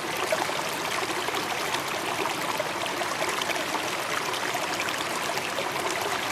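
Steady rush of flowing water, like a stream or small waterfall.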